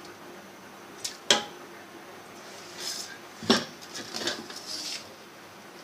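Utensil clinking and knocking against a metal pressure cooker while soaked whole black lentils (sabut masoor) are tipped into its water: two light knocks about a second in, a louder knock about halfway, and soft rushing between them.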